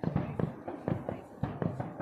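Fireworks going off: a rapid string of sharp pops and bangs, about four a second.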